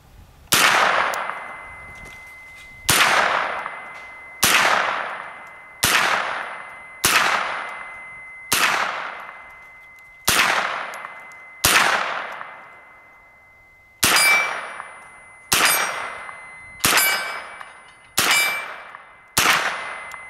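Sig Sauer MPX 9mm carbine fired in thirteen deliberate single shots, about one to two and a half seconds apart, each with a long echoing tail. The last five shots, from about two-thirds of the way in, each carry a ringing clang of a steel target being hit.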